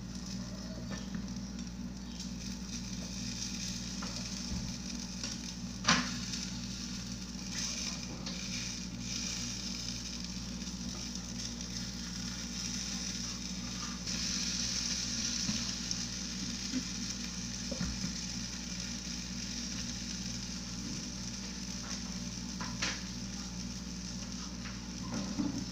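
Omelette frying in an oiled non-stick pan: a steady sizzle that swells louder for a few seconds around the middle, with two sharp knocks of the spatula against the pan.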